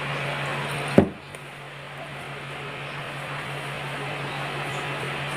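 A single hard knock about a second in, over a steady low hum and hiss.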